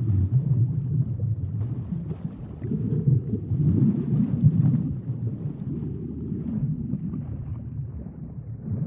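Water sloshing and churning, heard as a low, muffled rumble that swells for a couple of seconds partway through.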